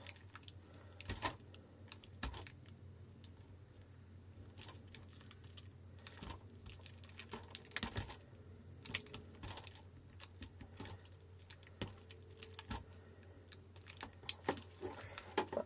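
Irregular small clicks and scrapes of a thin metal pick prying at the glued-on connector and wiring at the end of an e-bike lithium battery pack. A faint steady hum runs underneath.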